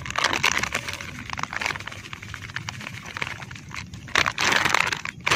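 Paper feed bag crinkling and rustling as it is handled over a steel bowl of dry fish-feed pellets, with many quick ticks of loose grains; the crinkling gets louder a little after four seconds in.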